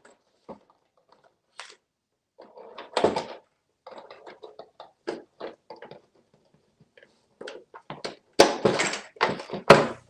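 Hard plastic tray knocked and shifted about by an African grey parrot rummaging in it among paper toy money: irregular thunks and rustles, loudest in a cluster near the end.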